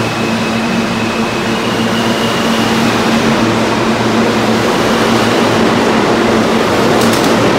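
R160 subway train running past the platform and gathering speed: a steady electric hum and a high whine from the traction motors over the rising rumble of wheels on rail. The whine steps up in pitch about two seconds in, and a few sharp clicks come near the end.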